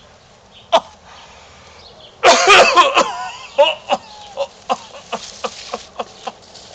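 A coughing fit: a single cough under a second in, then a loud, rough hacking burst about two seconds in, followed by a string of smaller coughs that trail off and grow fainter.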